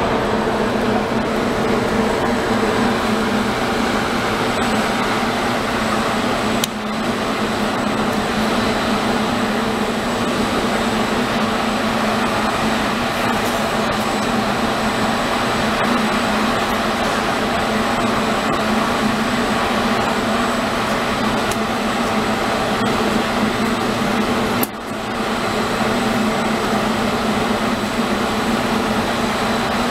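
Steady mechanical drone of a Metra bilevel commuter train standing at the platform, its on-board equipment running as a low hum with a faint steady high whine. The level dips briefly twice.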